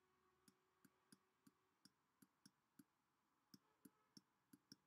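Faint clicks and taps of a stylus on a pen tablet while a word is handwritten, about three a second.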